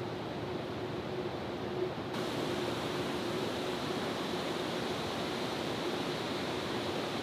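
Steady rushing background noise with a faint steady hum under it; the hiss turns brighter and slightly louder abruptly about two seconds in.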